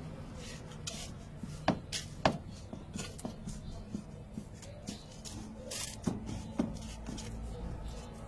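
Sawdust being packed down by foot in a metal bucket: scattered crunches and knocks as it is trodden firm to press the air out. The two sharpest knocks come about two seconds in.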